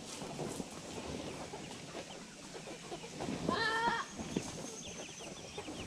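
Chickens clucking, with one louder pulsed squawk about three and a half seconds in.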